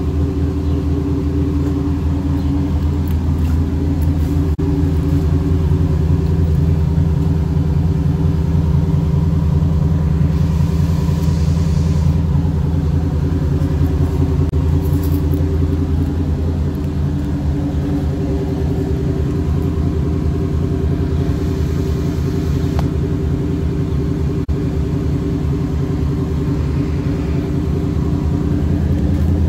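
Third-generation Chevrolet Camaro idling steadily, its low, even exhaust note heard close to the tailpipe.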